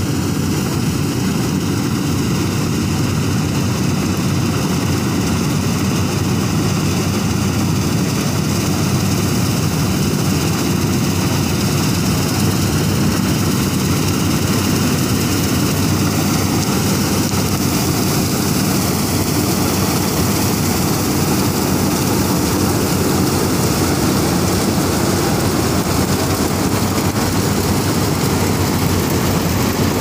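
Dasmesh 9100 self-propelled combine harvester running under load while cutting and threshing wheat: a loud, steady drone of engine and threshing machinery.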